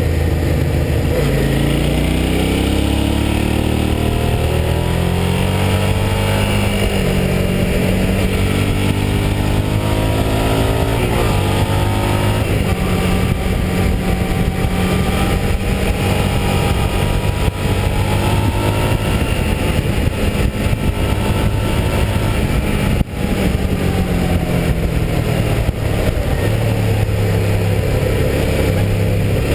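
Motorcycle engine pulling up through the gears, its pitch climbing in several successive sweeps, then cruising at a steadier speed, with wind rushing over the windscreen and microphone.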